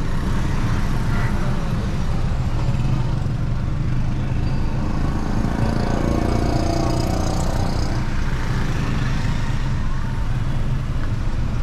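Cabin noise of a Kia Picanto driving in city traffic: a steady low rumble of engine and tyres with surrounding traffic noise, growing a little busier in the middle.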